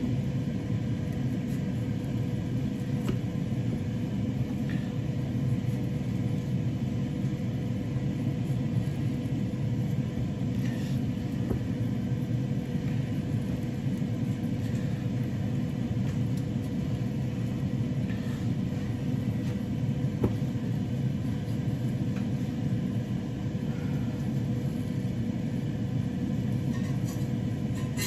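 Steady low hum of a running kitchen appliance, with a constant tone in it. A few faint taps of a knife on a plastic cutting board sound now and then as potatoes are scored.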